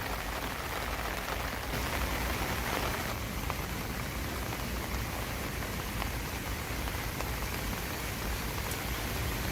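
Steady rain falling, a dense even hiss of drops hitting the ground and foliage, with scattered individual drop ticks.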